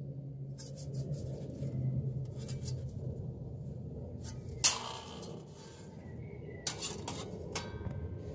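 Camp cookware being handled: a few short scrapes and rustles, and one sharp clink or knock about four and a half seconds in, over a low steady hum.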